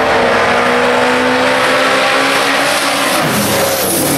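Two drag race cars launching and running down the strip at full throttle, their engines loud with a note that climbs slowly. A lower engine note joins about three seconds in.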